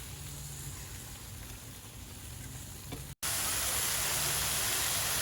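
Meat sizzling on a barbecue grill as a steady hiss over a low hum. A cut about three seconds in brings a louder, brighter sizzle.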